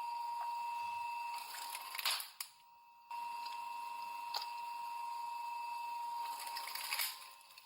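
Crushing machine running with a steady high whine, with a sharp crack about two seconds in and again near the end as something gives way.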